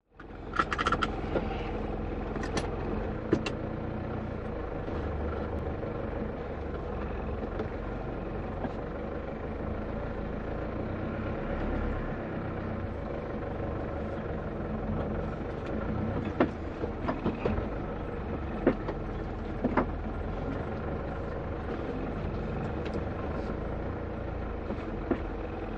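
Isuzu KB 300 TDi's 3.0-litre turbo-diesel engine running steadily at low revs, heard from inside the cab. A few sharp clicks and knocks sound near the start and again about two-thirds of the way in.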